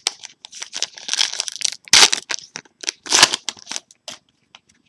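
Trading-card pack wrapper crinkling and crackling as it is torn open and handled, in irregular bursts, loudest about two and three seconds in.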